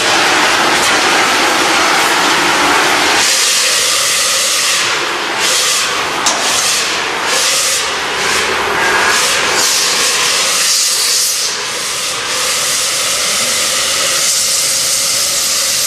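Dry-powder fire extinguisher discharging: a loud, continuous rushing hiss that wavers in strength after the first few seconds.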